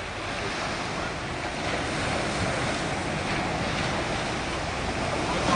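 Ocean surf: small waves breaking and washing up onto a sandy beach, a steady rushing that swells slightly.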